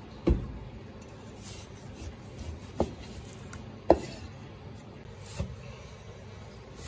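Chinese cleaver slicing raw beef into thick slices, knocking on a plastic cutting board as each cut goes through: five sharp knocks spaced a second or two apart.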